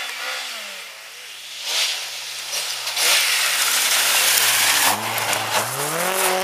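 Rally car on a snowy stage: the engine's revs fall as it comes into the corner, then climb again as it accelerates away. A loud hiss of tyres sliding on snow and ice rises about three seconds in as the car passes close.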